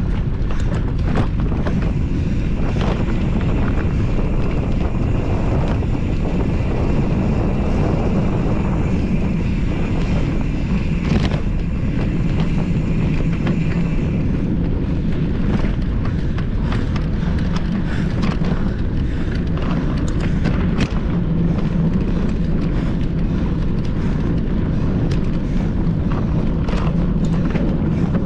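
Wind buffeting the microphone of a camera carried on a mountain bike riding a cross-country trail, with frequent short knocks and rattles from the bike over rough ground. A faint high steady whine runs through the first half.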